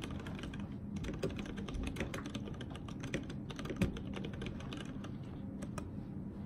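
Typing on a Tada68 mechanical keyboard with tactile Outemu Ergo Clear switches and GMK WoB doubleshot ABS keycaps: fast, continuous keystroke clacks with one louder stroke a little past the middle, the strokes thinning out near the end.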